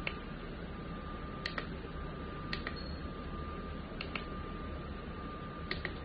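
Push buttons on top of a wooden Bluetooth speaker alarm clock clicking five times as they are pressed, each press a quick double click of press and release, while the date is being set. A steady hiss with a thin, high, steady whine runs underneath.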